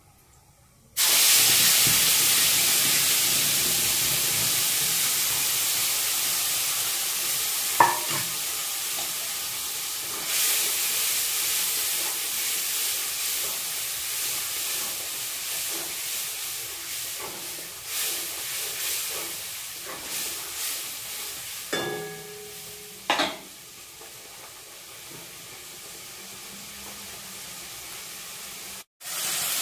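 Hot oil in a steel wok sizzling, starting suddenly about a second in as food is tipped in and fading slowly, with a few knocks and scrapes of a ladle stirring in the wok.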